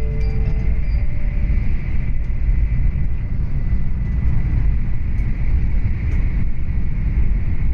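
Steady low rumble of a Tokaido Shinkansen train running, heard inside the passenger car, with a faint steady high whine. The last notes of the onboard chime die away in the first second.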